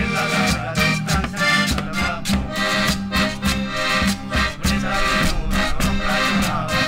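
Lively traditional Latin American music played on instruments: a held, reedy melody line over a steady, evenly pulsed beat.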